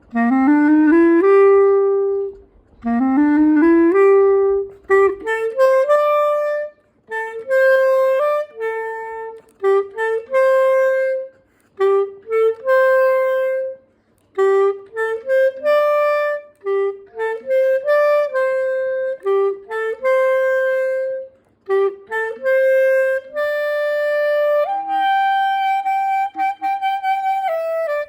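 A solo wind instrument playing a slow, unaccompanied melody in short phrases, many notes approached with an upward slide in pitch. Near the end it holds longer, higher notes.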